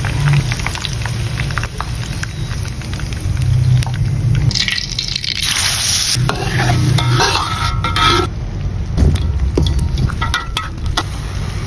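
Hot cooking oil sizzling in a wok, with metal strainer and spatula clinking and scraping against it. A loud burst of sizzling about four and a half seconds in, as the ground garlic and shallot paste goes into the hot oil. A steady low hum runs underneath.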